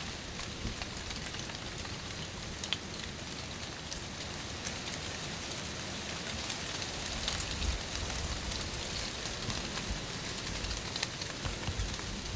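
Dry autumn leaves rustling and crackling: an even hiss with many small, scattered ticks.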